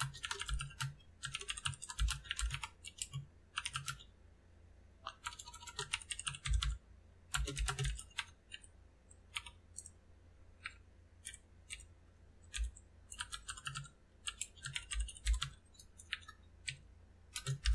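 Typing on a computer keyboard: quick runs of keystrokes with short pauses between, thinning to scattered single key presses in the second half.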